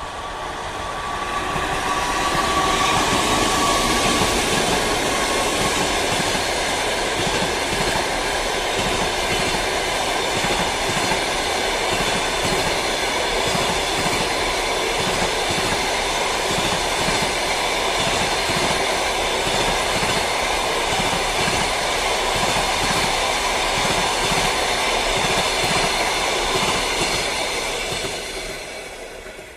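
Passenger train hauled by an EP2K electric locomotive passing close by, wheels clattering rhythmically over the rail joints as the carriages go by. The sound swells over the first couple of seconds, with a high steady whine at first, stays loud and even, then fades near the end.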